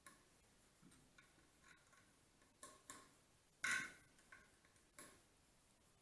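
A few faint, sharp clicks and small knocks against near silence, the loudest about halfway through.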